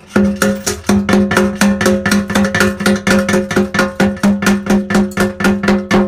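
Loud, quick, even hammer blows on a steel chisel, about four or five a second, each with a metallic ring. The chisel is chipping silicone and glued-on glass patches off the glass bottom of an aquarium.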